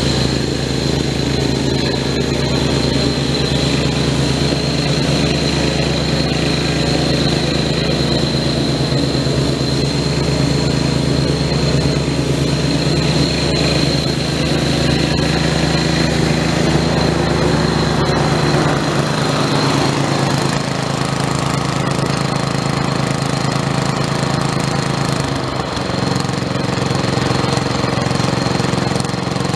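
Snapper 2650 rear-engine riding mower running while mowing, driven by an 11 hp Briggs & Stratton I/C L-head single-cylinder engine at a steady working speed, with a thin steady whine on top. The engine note shifts about two-thirds of the way through as the mower moves off.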